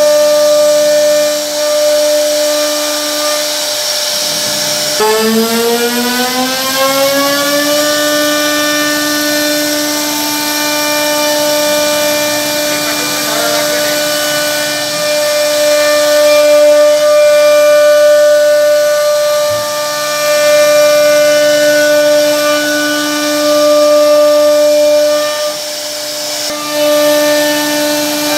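CNC router spindle running with a steady high whine as it carves a wooden door panel. About five seconds in the pitch drops, then climbs back up over a few seconds and holds.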